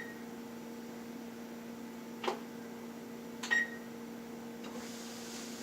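A kitchen appliance hums steadily. A click comes a little over two seconds in, and a single short electronic beep comes about three and a half seconds in, like a keypad press.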